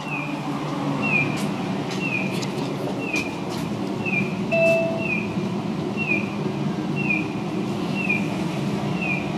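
A short falling electronic chirp repeats about once a second over a steady low hum. A single brief beep sounds about halfway through.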